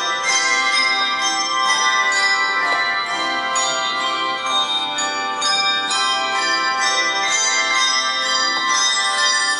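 Handbell choir playing a piece: bells struck one after another, each note ringing on and overlapping the next.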